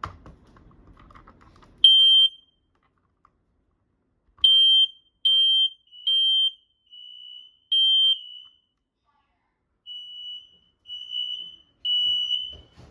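Home smoke alarm sounding on its test button: a run of short, high-pitched beeps of about half a second each, some loud and some fainter. A single click comes just before the louder run of beeps.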